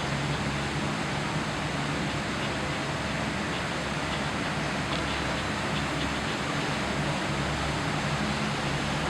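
Air source heat pump running: a steady rush of fan noise with a low, even hum underneath.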